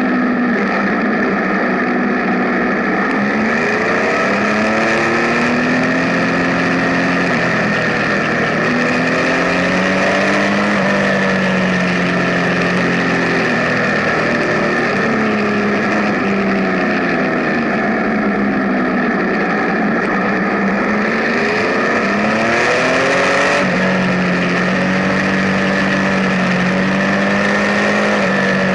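Benelli Tornado Tre 1130 TNT's inline three-cylinder engine under way, its revs climbing and falling again several times as the bike is ridden on and off the throttle.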